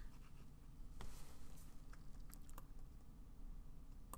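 A few faint clicks of a computer keyboard and mouse, one about a second in and a quick cluster a little past halfway, over a low steady room hum.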